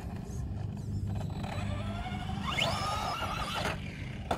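Arrma Big Rock 4x4 RC truck's brushless electric motor whining under throttle as the truck speeds toward a jump. The pitch climbs, shoots up steeply as the truck launches, holds briefly, then cuts off; a sharp knock comes right at the end.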